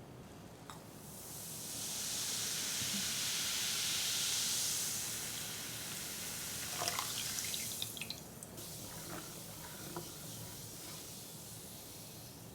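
Liquid running or being poured in a steady hiss that swells up about a second in and dies away after about eight seconds, followed by a few small drips and clicks.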